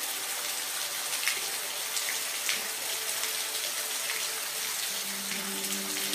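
Steady rain falling, an even hiss with individual drops striking close by now and then.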